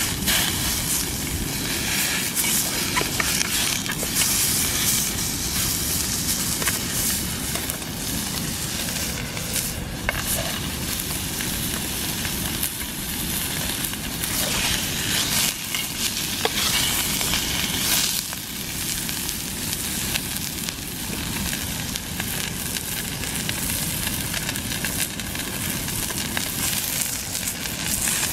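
Sirloin steak sizzling steadily as it sears in a frying pan on a gas camping stove, with a few light clicks and scrapes of a fork against the pan.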